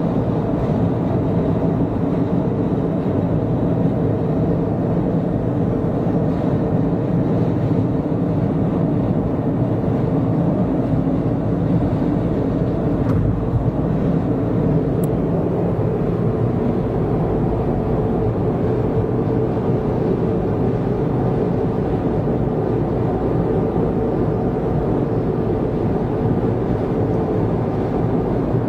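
Steady road and engine noise inside a car driving at a constant pace.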